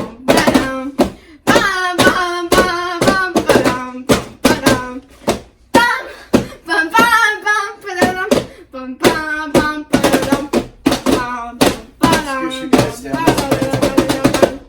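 Music: a melody of held, sung-like notes over a run of sharp percussive clicks.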